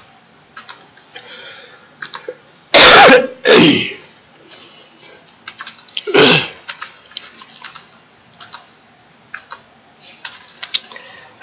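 Computer keyboard keys clicking in scattered presses as code is edited. A person coughs loudly twice about three seconds in and once more about six seconds in.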